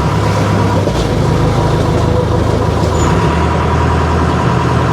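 Motorboat engine running loudly and steadily under way, its low hum shifting pitch slightly a couple of times.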